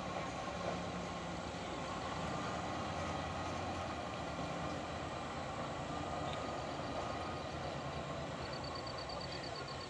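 Diesel engines of a flatbed truck and the road roller towing it uphill, running steadily under load. Near the end a rapid run of faint, high chirping ticks.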